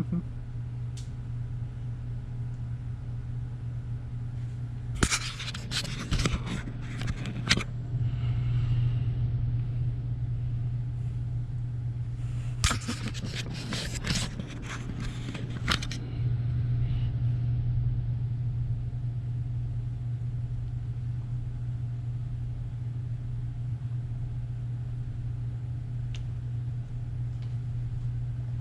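Clicks and scrapes of small bike parts, such as a plastic mount, being handled and twisted, in two spells: about five seconds in and again about twelve seconds in. A steady low hum sounds throughout.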